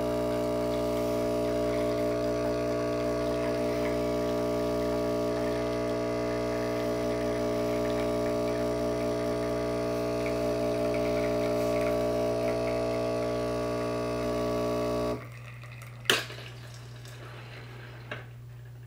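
Breville espresso machine's pump buzzing steadily while it pushes water through the portafilter during an espresso shot, then cutting off suddenly about fifteen seconds in as the shot ends. A sharp click follows about a second later, and a fainter click near the end.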